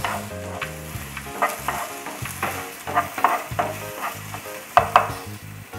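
Chopped onion sizzling as it fries in hot oil in a non-stick pan, with a spatula stirring it and scraping against the pan in short strokes every second or so.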